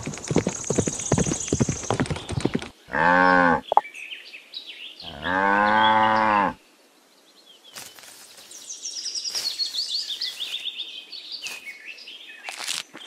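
Cow mooing twice, a short moo about three seconds in and a longer, louder one about five seconds in. Before them comes a rapid clattering with a high ringing, and after them birds chirp.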